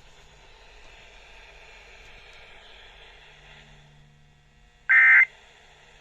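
Emergency Alert System end-of-message data burst: a short, loud blast of buzzing digital SAME tones about five seconds in, played through a Midland WR400 weather radio. Before it, only faint radio hiss.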